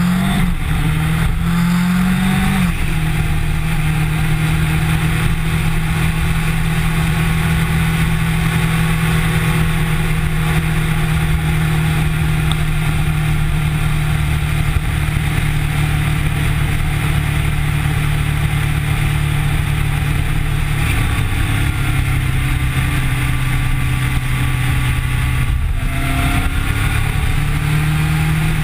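Kawasaki Ninja sport motorcycle engine heard from a camera mounted on the bike, pulling up in pitch and changing gear in the first few seconds, then holding a steady cruising note over a constant rush of noise. Near the end the note briefly drops and then climbs again.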